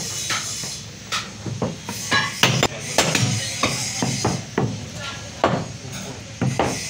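Meat cleaver chopping through fresh beef onto a wooden log chopping block, a run of irregular sharp chops about two a second.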